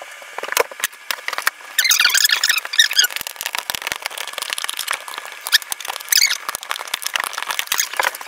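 Cardboard crafting sounds played at about forty times speed: a dense run of rapid clicks and high squeaky chirps.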